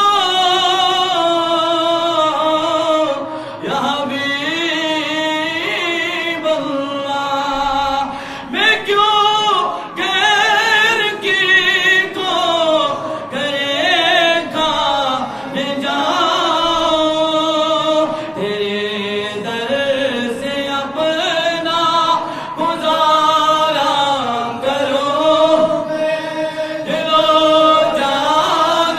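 A man singing an Urdu naat unaccompanied, in long held phrases with a wavering, ornamented pitch and short breaks between lines.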